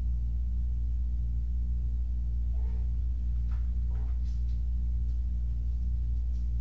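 Steady low electrical hum, with a few faint short scuffs and taps from a kitten pouncing and scrambling on a rug between about two and a half and four and a half seconds in.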